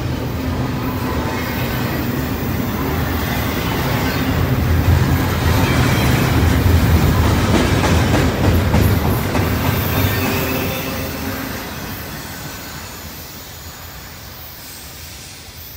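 Norfolk Southern double-stack intermodal freight train's well cars rolling past close by, a continuous rumble of wheels on rail. It grows louder through the middle, then fades away as the end of the train passes and recedes.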